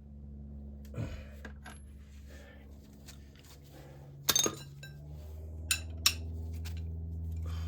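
Metal hand tools and hardware clinking and clanking a few times, the loudest a short clatter a little past the middle. A steady low hum runs underneath and grows louder about five seconds in.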